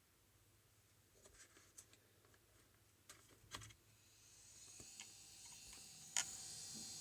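Failing 2.5-inch IDE laptop hard drive: a few faint clicks, then from about four seconds in the platters spin up with a faint high whine and a single sharp clack just after six seconds. This spin-up-then-clack cycle repeats over and over and is the sign of a failed drive that the computer cannot recognise.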